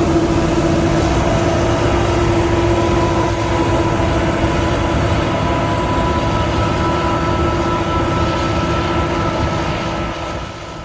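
Claas Lexion 540 combine harvester running steadily: a low engine drone with a steady whine over it, fading out near the end.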